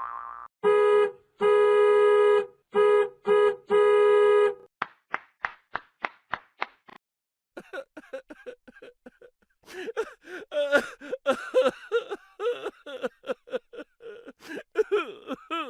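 A sound-effects sequence: a car horn honks in a rhythmic pattern of short and long blasts, then a run of short sharp taps fades out like a bouncing ball, then a fast jumble of chattering, giggle-like cartoon sounds.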